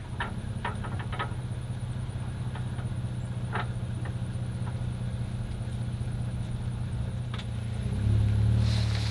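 Jeep Gladiator engine idling steadily, with a few light clinks and knocks in the first second or so, then running louder near the end as the truck moves off.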